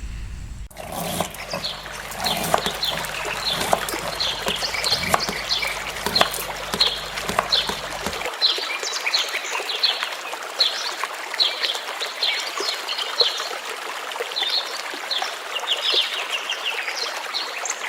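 Many birds chirping over a steady sound of trickling water, with a low hum underneath that stops about eight seconds in.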